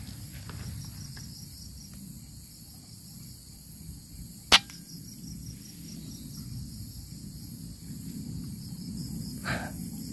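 A single sharp shot from a scoped hunting rifle about four and a half seconds in, over a steady high insect drone.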